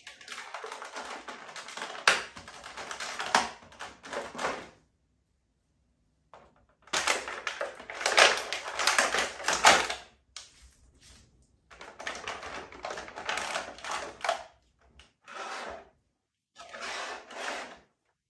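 Clear plastic action-figure packaging crinkling and crackling as gloved hands handle it, in about five bursts with short pauses between.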